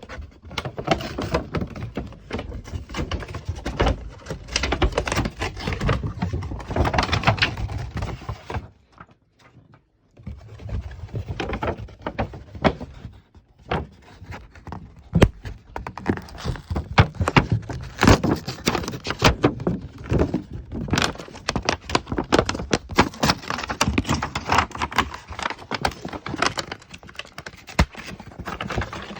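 Packaging being handled and opened by hand: a dense, irregular run of rustling, tapping and knocking, with a short pause about nine seconds in.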